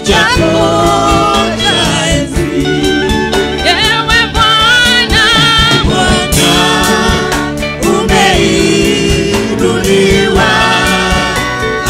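A woman's amplified voice leading a gospel praise-and-worship song, with backing singers and a band keeping a steady beat.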